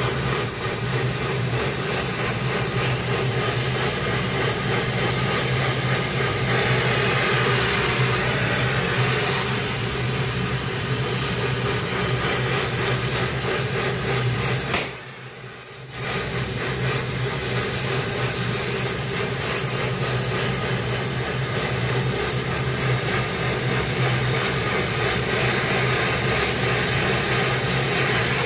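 Oxy-fuel gas torch flame hissing steadily as it works on a steel pipe, throwing sparks. About halfway through, the sound drops out for a second, then resumes.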